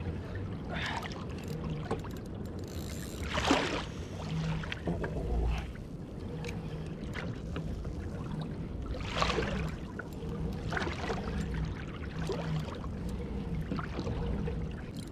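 Sea water lapping against a kayak's hull, with two louder splashing rushes about three and a half and nine seconds in.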